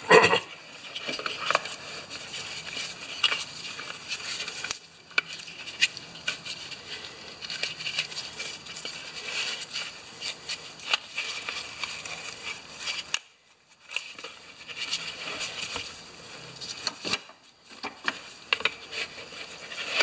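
Old rubber tire being worked onto a Honda HRA214 mower's plastic wheel rim by hand and pried on with a screwdriver: rubbing, scraping and scattered small clicks and knocks, with a brief break about thirteen seconds in.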